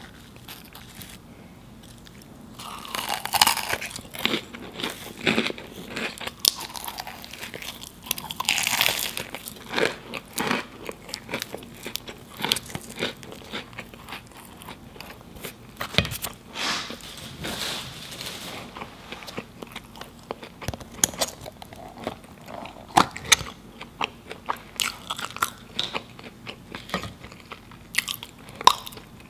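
Close-miked eating of a fried samosa: its crisp pastry crunches loudly in bites about three seconds in and again near nine seconds, followed by chewing with many small crackles and wet mouth clicks.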